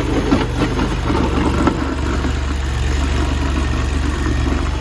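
Mini stand-on skid steer loader's 739cc engine running steadily, loud, with a low engine hum and some mechanical clatter on top.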